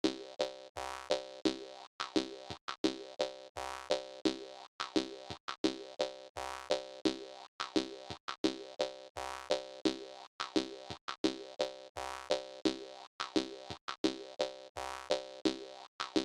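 Jaw harp music with a steady danceable rhythm: twanging plucked notes, about three a second, each dying away quickly, over an occasional low beat.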